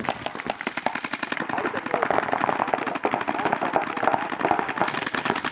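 Paintball markers firing in rapid, continuous volleys, many shots a second, as sharp popping cracks.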